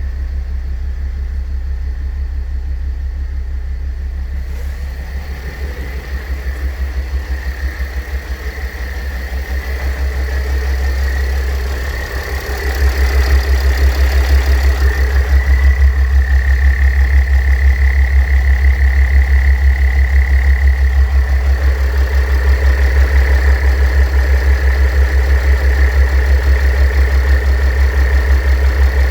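Mercedes-Benz W211's OM642 3.0 V6 diesel idling, with a steady high-pitched whine from the A/C compressor's pulley bearing over the engine's even rumble. The bearing is worn: replacing it removes the noise. Everything gets louder about twelve seconds in.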